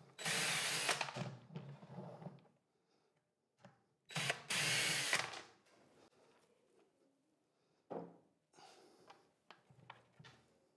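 Cordless drill-driver backing out the fixing screws of a plastic chamber lid and frame, in two short runs about four seconds apart. A few light clicks and knocks of handling follow near the end.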